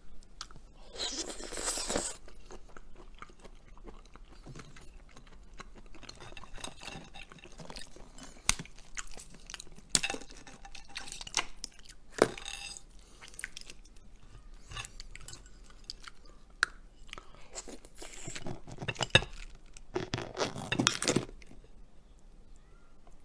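A person chewing and crunching seafood up close, with scattered sharp clicks and cracks. The thickest crunching comes about a second in and again near the end.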